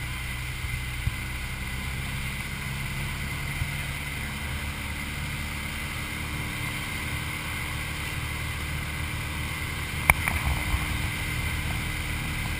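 Light aircraft's engine and airflow droning steadily inside the cockpit. A single sharp click about ten seconds in.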